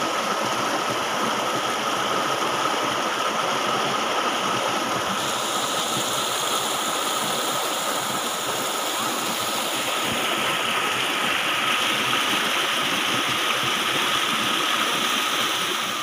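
Water rushing and splashing over rocks in a small stream cascade, a steady rush without pause.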